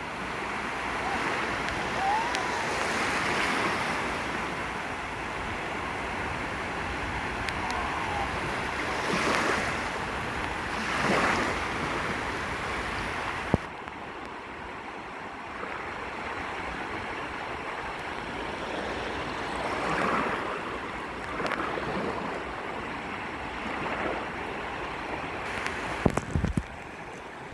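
Sea waves washing onto a beach, swelling and falling back every few seconds, with wind rumbling on the microphone that stops abruptly about halfway through. A few sharp clicks near the end.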